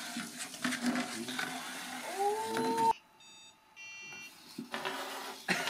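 Two short electronic beeps, about three and four seconds in. Before them, a murmur of voices and a tone that rises and levels off, cut off abruptly.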